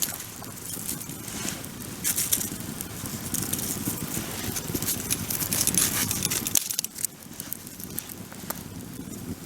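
Wood bonfire burning, crackling and popping irregularly over a low steady rush.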